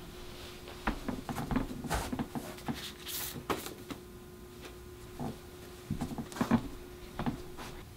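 Footsteps on a wooden floor, knocks against a wooden bookshelf and the rustle of a book being taken out and opened, as irregular knocks and clicks with a brief papery rustle about three seconds in. A faint steady hum runs underneath.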